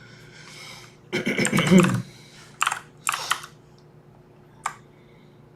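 Computer keyboard typing in short bursts, with a single sharp click near the end, after a brief murmured word.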